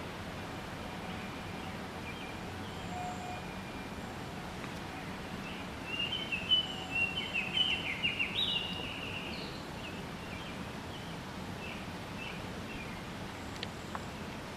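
Canada goose goslings peeping: a run of short, high chirps about six seconds in, lasting a few seconds, with a few fainter peeps later. A steady hiss runs underneath.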